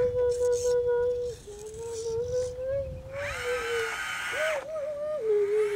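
A child's voice humming one long, wavering note that dips and wobbles in pitch, with a short louder, higher stretch about three seconds in.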